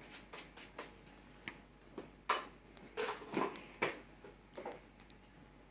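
Irregular light clicks and knocks of a plastic tub and its snap-on lid being handled, the lid pressed back on.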